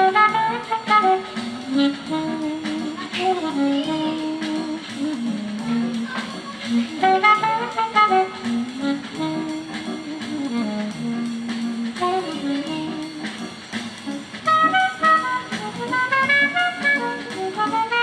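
Instrumental music played through the Pioneer XC-HX55 mini speaker system's 4-inch full-range speakers and picked up by a microphone, a melodic lead over a bass line.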